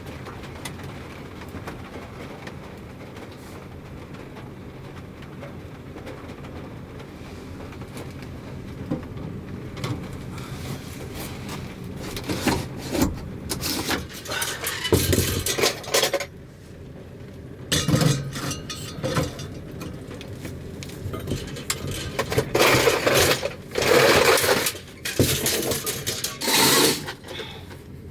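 A steady low background rush. About halfway through it gives way to irregular clinks, knocks and scraping of objects being handled, which grow louder toward the end.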